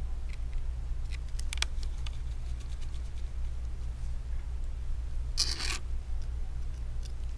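Small clicks and scrapes of a precision screwdriver and gloved fingers on the metal brackets inside an iPhone 6s Plus, with one longer scrape a little past the middle, over a steady low hum.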